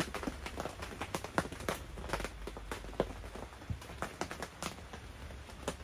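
Rain pattering on a tent, with scattered drops tapping irregularly.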